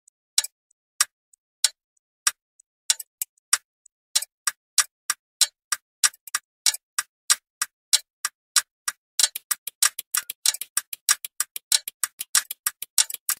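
Sharp, clock-like ticks with dead silence between them. They are slow and uneven at first, then speed up until, about two thirds of the way through, they run rapidly at several a second.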